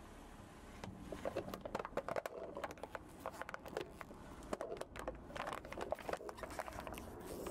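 A car tyre rolling slowly over a row of upturned red plastic cups and paper cups, crushing them one after another: a dense run of crackling, snapping and crumpling that starts about a second in.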